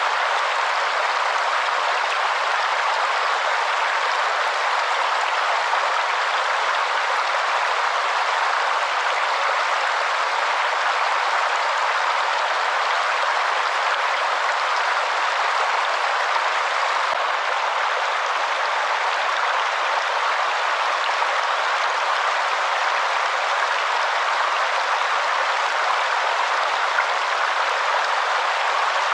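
Waterfall: a steady, even rush of falling water, with no deep rumble underneath.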